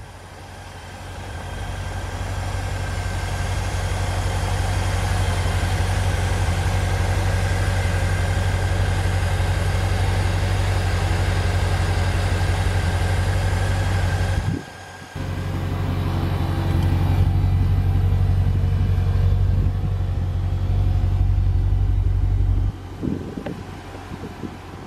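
3.9-litre Land Rover V8 idling steadily: a low, even hum. It breaks off briefly about halfway through, picks up again, then drops much quieter a couple of seconds before the end.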